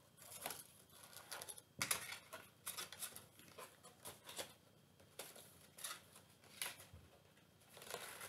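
Faint rustles, taps and scrapes of stiff card being folded and handled, as the panels of a paper explosion box are closed up into a box. The sharpest tap comes about two seconds in.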